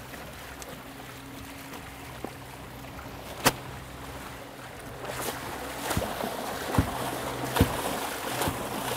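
Outboard motor idling with a steady low hum while water splashes against the boat's hull from a hooked sailfish thrashing alongside, the splashing growing in the second half. Sharp knocks come through: a loud one about three and a half seconds in, then four more less than a second apart near the end.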